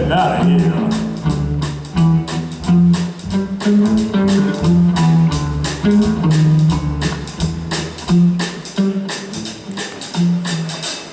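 Live swing band playing an instrumental passage, with a stepping bass line, guitar and drums keeping a steady beat; the music drops away near the end.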